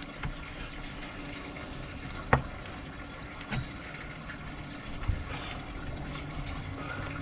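Three sharp, irregularly spaced knocks of hand tools striking metal on the shift linkage, over a steady low hum. The loudest knock comes about two seconds in.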